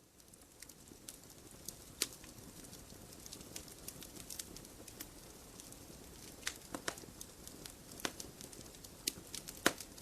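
Light rain: a soft steady hiss with scattered single drops tapping on a hard surface, a few louder taps about two seconds in and near the end.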